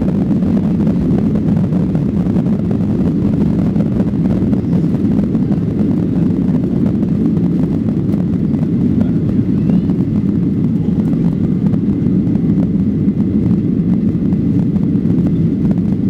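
Boeing 737-800 cabin noise at a window seat behind the wing: the CFM56-7B jet engines and airflow make a loud, steady, deep rumble that holds level throughout.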